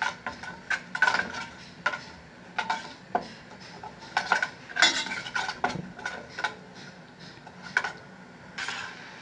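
A utensil clinking and knocking against a small cooking pot, in sharp irregular clicks with some scraping between them.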